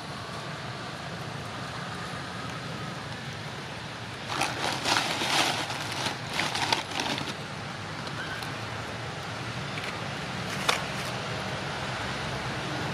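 Dry leaves and twigs crackling and rustling for about three seconds, starting about four seconds in, as baby monkeys scramble over a pile of dry sticks; one sharp crack comes later, over steady outdoor background noise.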